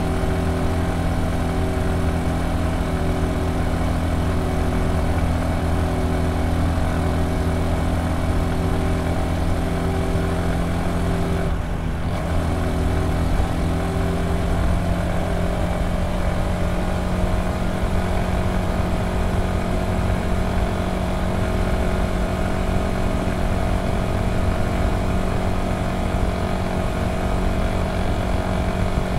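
Honda Super Cub C125's single-cylinder four-stroke engine and exhaust running at a steady cruise, picked up clearly with little wind noise. The note dips briefly about twelve seconds in, then its pitch creeps slowly upward.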